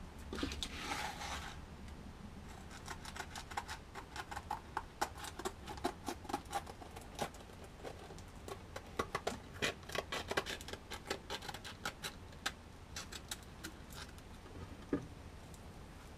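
Scissors cutting sandpaper backed by hook-and-loop pads: a long, irregular run of short crisp snips, a few a second, after a brief rustle of handled paper about a second in.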